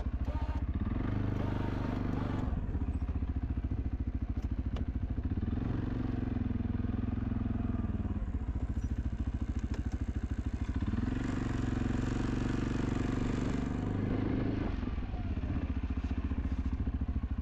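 An ATV engine runs steadily while plowing snow. It picks up three times, about a second in, around six seconds in and around eleven seconds in, and each time eases back.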